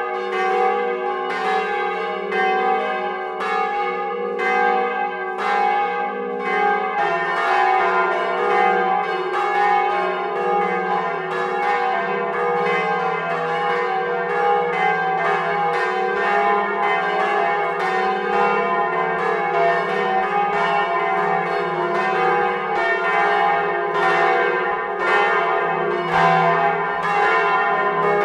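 Swinging church bells ringing, with repeated clapper strokes and a long hum between them. About seven seconds in, the ringing moves to a lower bell, the 1,050 kg fa 3 bell cast by Arnoux in 1881.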